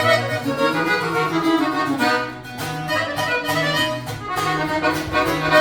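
Instrumental break in an accordion-led Mexican corrido: accordion melody over a stepping bass line, with no singing.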